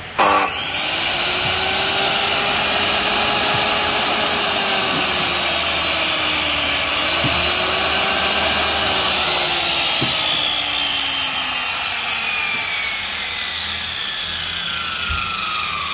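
Hitachi 100 V miter saw with a 216 mm blade, its motor switched on with a sudden start and running with a steady whine, the pitch falling over the last few seconds as it slows.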